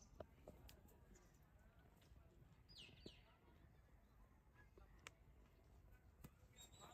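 Near silence: a faint background with a few soft clicks and two quick, high, downward chirps about three seconds in.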